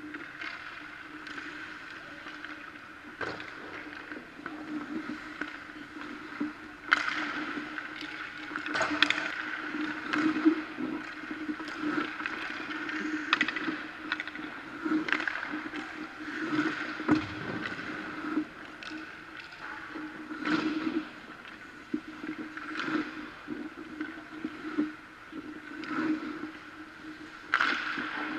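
Goalie skates and leg pads scraping and pushing across the ice during crease movement drills, with sharper scrapes and knocks every one to three seconds as he drops and pushes across. A steady rink hum runs underneath.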